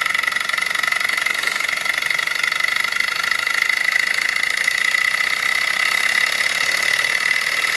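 Small gamma-type walking-beam model Stirling engine with belt-driven generator running fast and steadily: a continuous high-pitched whirring rattle from its flywheel, beam linkage and pistons, the engine vibrating hard on its base. The owner puts the high speed down to an oversized alcohol flame and says the flywheel seems out of balance.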